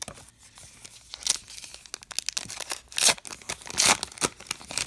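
A 2019 Topps Allen & Ginter baseball card pack's wrapper torn open and crinkled by hand: a series of short sharp rips and crackles, the loudest about three and about four seconds in.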